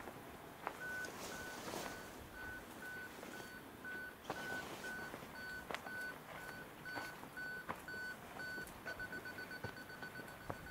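Electronic beeper sounding a steady series of short, high beeps about two and a half times a second, which switch to a fast run of rapid beeps near the end and then stop.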